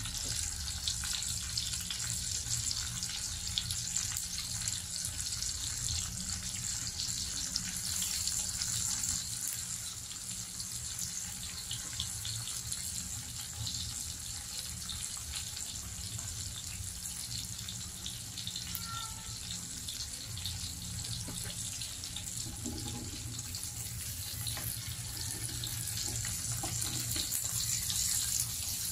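Sliced ham and pork belly sizzling in a hot grill pan: a steady hiss crackling with small fat pops, over a low steady hum.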